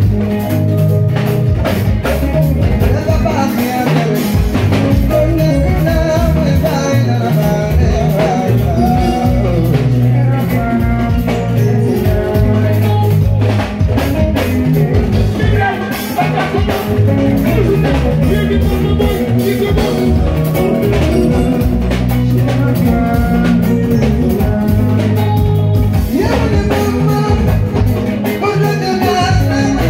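Live Senegalese mbalax band playing, drum kit and percussion keeping a busy beat, with a male singer's voice over the music.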